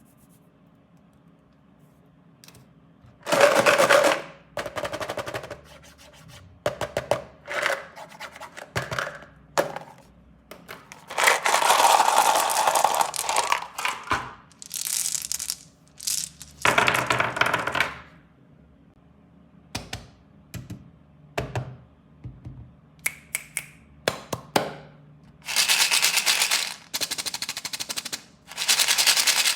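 Candy and toy packaging being opened by hand: plastic wrappers crinkled and torn in repeated bursts, with quick clicks and taps in between.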